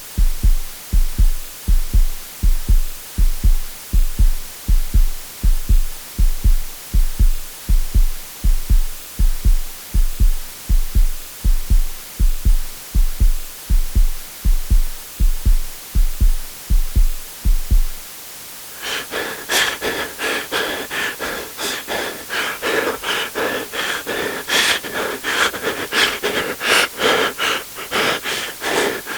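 Heartbeat sound effect: deep, evenly repeating low beats, about two a second. About two-thirds of the way in it gives way to rapid, breathy panting, several short breaths a second.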